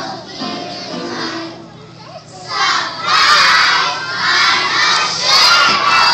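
A group of young children singing, then, after a short lull about two seconds in, shouting together loudly several times in a row.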